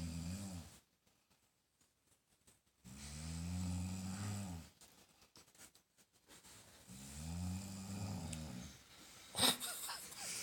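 A person snoring: long, low-pitched rumbling snores about every four seconds, one trailing off right at the start and two more starting about 3 and 7 seconds in. A sharp click or knock near the end stands out above them.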